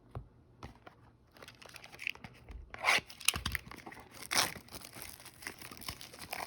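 Trading card packaging being torn open by hand: a few small clicks, then from about a second and a half in a run of ripping and crinkling, with the loudest tears about three and four and a half seconds in.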